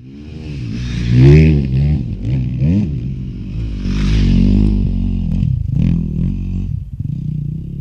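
Off-road enduro motorcycle engine revving up and down, its pitch rising and falling repeatedly as it fades in at the start, with a few sharp knocks about two-thirds of the way through.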